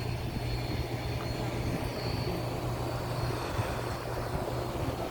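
Steady low engine drone, with no speech over it.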